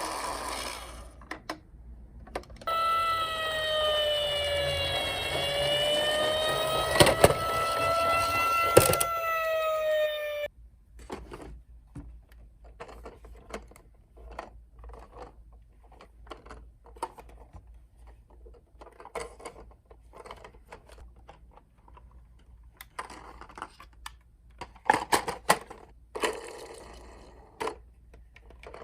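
Toy emergency-vehicle minicar's electronic siren wailing, its pitch dipping slowly and rising again, cutting off suddenly about ten seconds in, with a couple of sharp knocks while it sounds. After that, scattered light clicks and clatter.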